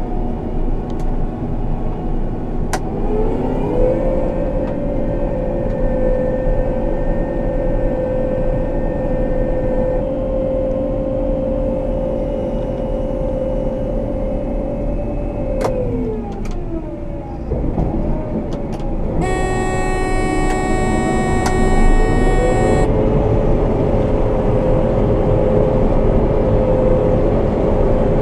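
John Deere 9500 combine's diesel engine running under harvest load. Its pitch rises about three seconds in, holds steady, drops around the middle, then rises again near the end. While the engine is low, a horn-like tone sounds steadily for about three and a half seconds.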